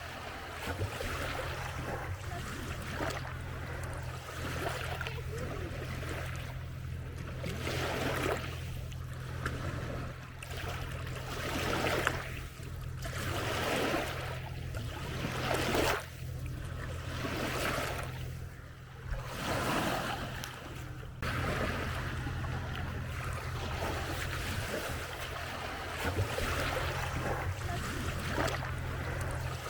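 Small lake waves lapping and washing on the shore in repeated surges, every second or two, over a steady low hum.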